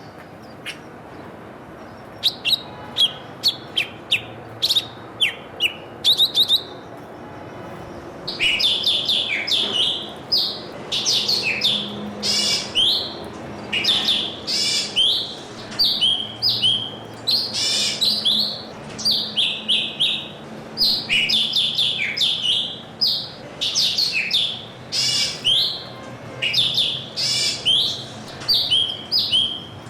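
Small birds chirping: a few sharp, scattered chirps at first, then from about eight seconds in a dense, nearly continuous run of high chirps.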